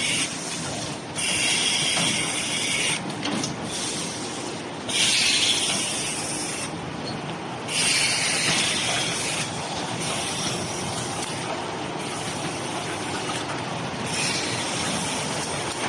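Automatic tissue box packing machinery running: steady machine noise, with bursts of hissing that recur every few seconds and last a second or two each.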